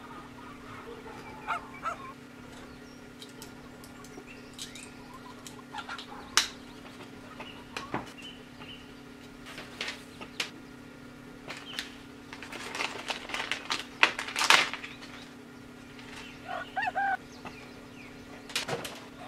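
Hands handling plastic lamp-holder parts and electrical cable: scattered clicks, taps and rustling, with a denser stretch of rubbing and rustling past the middle, over a steady low hum. There are a few short squeaks near the end.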